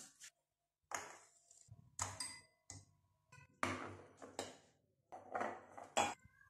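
Glass jars being set down and shifted on a kitchen countertop: a string of irregular clinks and knocks, some leaving a short ringing tone.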